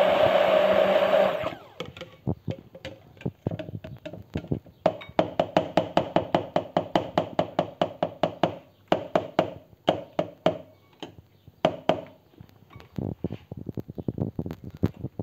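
Electric stick blender running in thick Caesar dressing, cutting off about a second and a half in. It is followed by long runs of quick sharp knocks, several a second: the blender's head is tapped against the rim of the plastic beaker to shake off the dressing.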